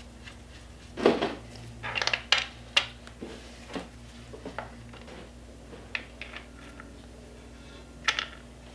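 Light metallic clinks and taps at irregular intervals as the front sprocket cover's bolts are handled and fitted by hand, over a faint steady low hum.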